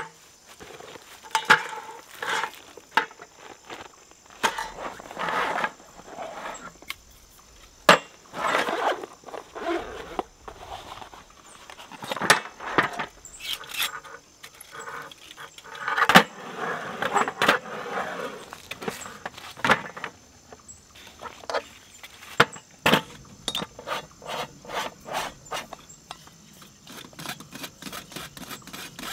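Clicks, clatter and light metallic rattling of a folding camp gas stove and its hinged metal windscreen being unfolded and set down on a metal camp table, with rustling of gear in between. A quick run of small clicks comes near the end as the stove's fuel hose is handled.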